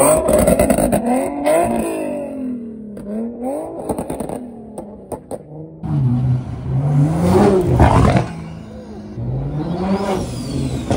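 Car engines revving hard several times, each rev climbing in pitch and dropping back. The longest rev builds up between about six and eight seconds in. A few sharp crackles come around four to five seconds in.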